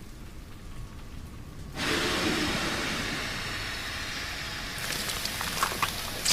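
Anime destruction sound effects: a low rumble, then about two seconds in a sudden loud rush of hissing noise that slowly fades. Scattered crackles follow, with a sharp crack near the end.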